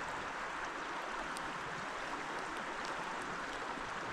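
Steady rush of a trout stream's flowing water, an even hiss with no change in level.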